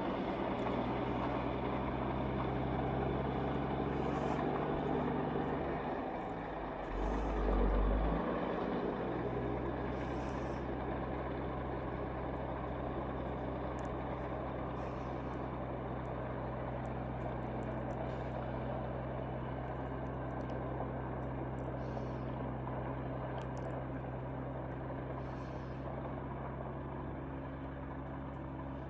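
A vehicle engine running steadily with a constant low hum, a brief deep surge about seven seconds in.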